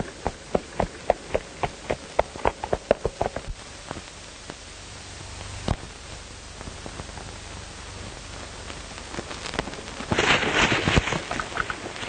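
Horses' hooves galloping on a dirt trail: a quick, even run of hoofbeats at first, a single beat midway, then a louder, denser clatter near the end, over the steady hiss of an old film soundtrack.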